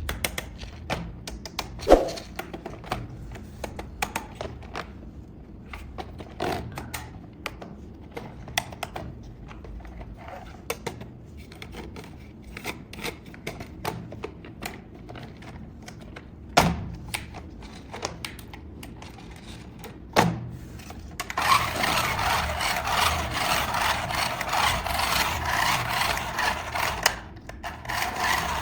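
Handling noises from unboxing a toy: scattered knocks and clicks of plastic parts and packaging being moved, then about six seconds of louder continuous rustling and scraping near the end.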